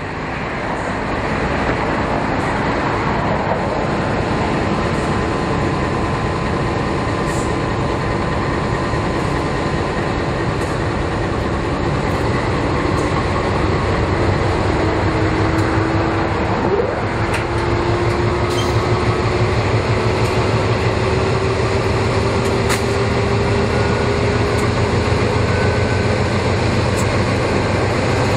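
Diesel-electric locomotives pulling away under power: a steady engine rumble that grows heavier about halfway through, with a whine that slowly rises in pitch as they gather speed.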